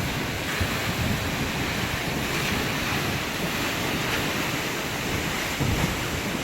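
Waterfall close up: a steady rushing of falling water, with a few low gusts of wind buffeting the microphone.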